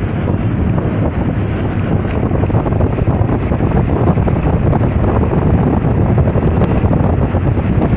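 Steady wind buffeting the microphone of a camera filming from a moving vehicle, a dense low rumble with the vehicle's road noise underneath.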